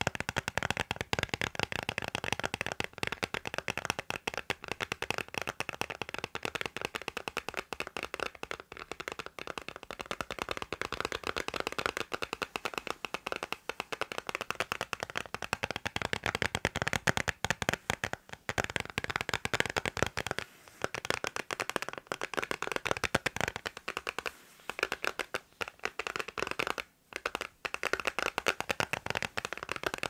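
Fast finger tapping on a phone case held right at the microphone: a dense, unbroken stream of small clicks, with a few brief pauses in the second half.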